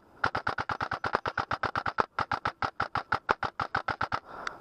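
Airsoft rifle firing long full-auto bursts, a rapid even clatter of about ten shots a second, with a brief break about two seconds in.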